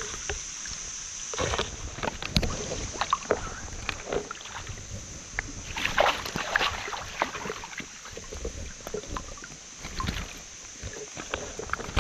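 Water splashing and sloshing in irregular bursts as a hooked fish thrashes at the surface and is scooped into a landing net, loudest about six seconds in.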